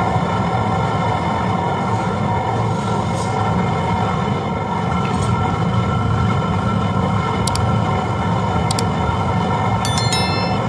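Domestic electric flour mill (atta chakki) running steadily with an even motor hum, with a few light ticks and a brief cluster of clicks near the end.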